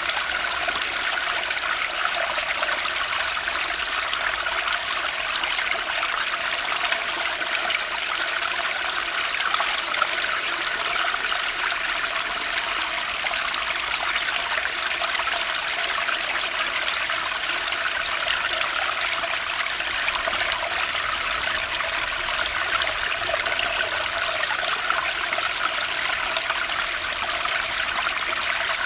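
Running water flowing steadily, a continuous splashing rush like a stream or small cascade, with no pauses or changes.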